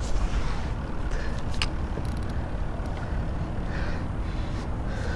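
Water lapping and washing along the hull of a moving kayak, over a steady low rumble, with a couple of light clicks.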